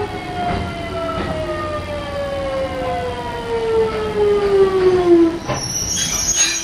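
Kintetsu 1420 series electric train's VVVF inverter traction motors whining in a steadily falling pitch as the train slows. The whine cuts out about five seconds in, and a high squeal follows near the end as it comes to a stop.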